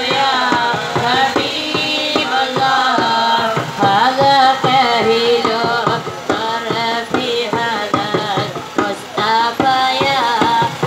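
Arabic devotional song praising the Prophet, sung with long gliding melodic lines over a steady hand-drum beat.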